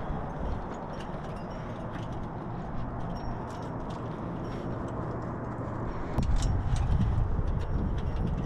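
Wind rumbling on the microphone, growing louder about six seconds in, with scattered light clicks and clinks, typical of climbing gear and movement on rock.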